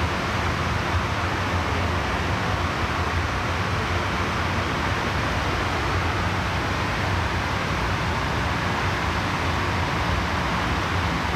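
MTR M-Train electric metro train running through an underground station platform without stopping, heard through the platform screen doors: a steady, even rolling noise with a low hum beneath it.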